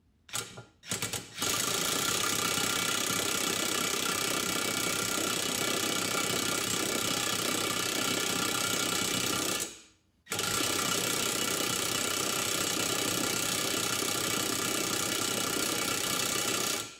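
Earthquake XT cordless impact wrench hammering on the pinion nut of a Ford 8.8 rear differential: a few short blips, then two long runs of about eight and six and a half seconds with a brief pause between. The nut is very tight and turns only slowly under the blows.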